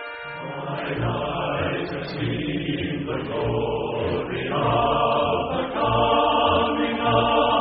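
Music interlude: held, chant-like choir voices over a slow, regular low beat.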